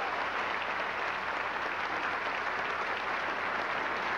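Large banquet audience applauding steadily: the even clatter of many hands clapping at once.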